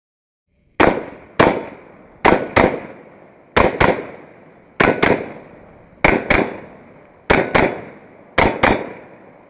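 Semi-automatic rifle fire from an AK-47 in 7.62×39 fitted with a Tactical Advantage Armory FH-47 titanium birdcage muzzle brake: about fourteen sharp shots, mostly in quick pairs, each ringing off into an echo. The shooting starts just under a second in.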